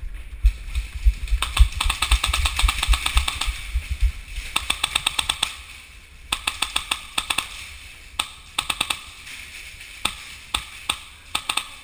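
Polar Star high-pressure-air airsoft rifle firing in rapid bursts of shots, about five bursts one after another, with a low rumble on the microphone during the first few seconds.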